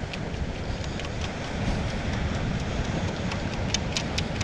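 Stainless steel beach sand scoop being shaken to sift sand out through its holes, with scattered light clicks and rattles as grit and the target move in the basket, more of them near the end. Steady wind rumble on the microphone underneath.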